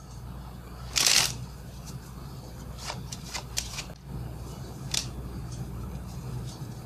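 A new deck of Bicycle playing cards being handled: a brief loud flurry of card noise about a second in, then a series of short, sharp card snaps as cards are spread and laid down.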